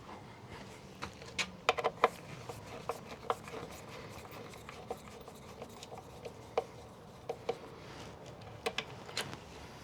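Irregular light clicks and knocks of hand tools and hardware being handled at a wooden gate, a few sharper taps about two seconds in and again near the end.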